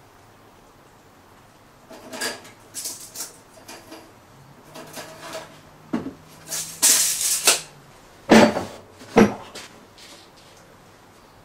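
Steel tape measure handled over wooden boards: scattered clicks and rattles, then the blade rattling back into its case for about a second, followed by two sharp knocks.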